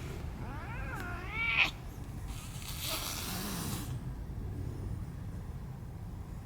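A cat yowling in a territorial standoff: a wavering, up-and-down call that climbs into a short loud screech about a second and a half in. About a second later comes a stretch of hissing noise lasting about a second.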